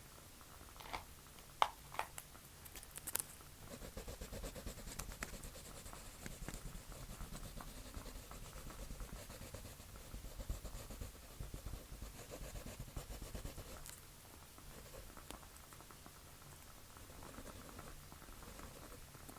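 Pencil scratching on paper in a long stretch of strokes, starting about four seconds in and easing off about ten seconds later, with a few sharp clicks in the first few seconds.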